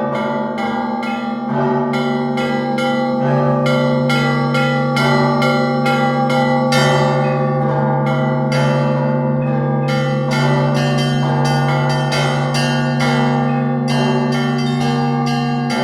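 Church bells ringing together: rapid, continuous strikes of smaller bells over the steady hum of larger, lower bells.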